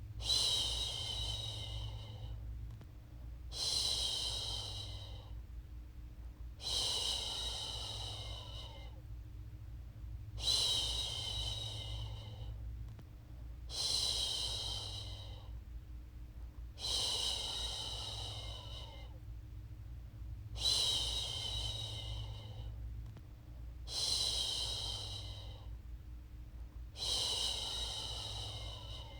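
A woman shushing: a long "shhh" repeated about every three seconds, nine times, each one starting strong and trailing off, over a steady low hum. It is a shushing sound for soothing a baby back to sleep.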